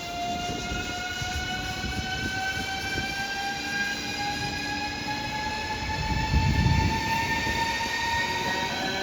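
An electric train's traction motors whining as it accelerates, the whine rising slowly and steadily in pitch, over wheel-on-rail rumble that swells about six seconds in.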